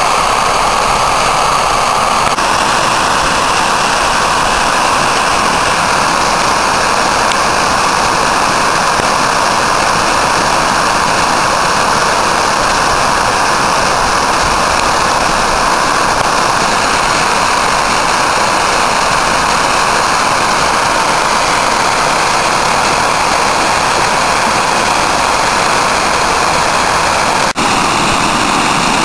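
Rainwater runoff overflowing a stepped masonry dam and rushing down its spillway: a loud, steady rush of falling water, broken once briefly near the end.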